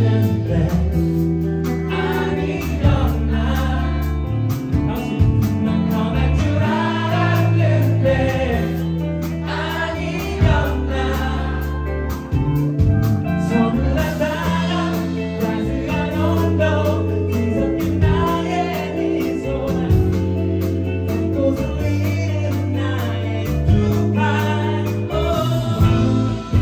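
Live band music with singing over held bass notes and other instruments.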